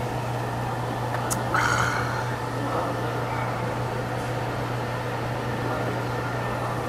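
Steady low machine hum with even room noise. A brief sharp clink comes about a second in, and a short higher sound follows just after.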